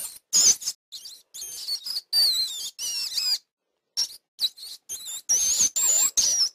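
Rat squeaking: a quick string of short, high-pitched squeaks that waver up and down in pitch, with abrupt silent gaps between them.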